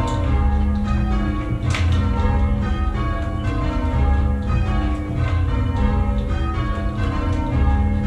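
Ring of six church bells in A♭, tenor about 9 cwt, most cast by Henry Penn in 1719, being change-rung, one strike after another in steady succession. Heard from the ringing chamber below, with a low rumble underneath that swells and fades.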